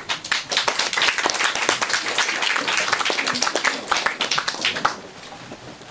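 Audience applause: many hands clapping irregularly, stopping about five seconds in.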